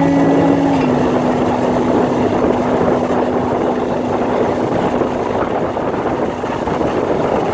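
Road vehicle noise: a horn sounds for about the first second and breaks off, then a single steady hum holds over a continuous rushing noise.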